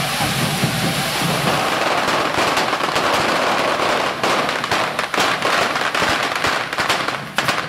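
Correfoc carretilles, hand-held fireworks, spraying sparks with a continuous loud hiss. Many sharp firecracker cracks and bangs go off from about two seconds in.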